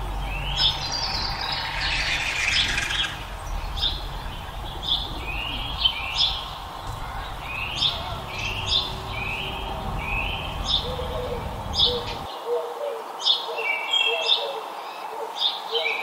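Small songbirds chirping: short, quick falling chirps repeated about once a second. A low background rumble under them stops abruptly about twelve seconds in.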